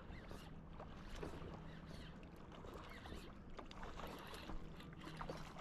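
Faint water splashing and rustling as a hooked smallmouth bass is brought in at the water's edge. A jacket sleeve brushes over the body-worn microphone, making scattered faint rubbing ticks.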